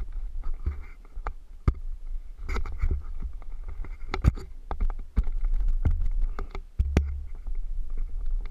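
Low rumble with scattered sharp knocks and clicks picked up by a helmet-mounted camera's microphone.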